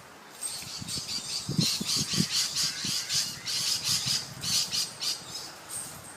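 Birds squawking in a rapid series of short, harsh calls, starting about half a second in.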